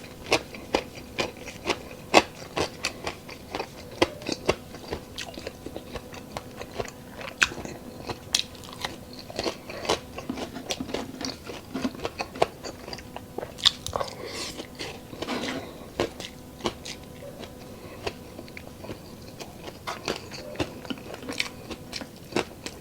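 Close-miked chewing and crunching of crispy deep-fried pork intestine (chicharon bulaklak), with many sharp, irregular crunches.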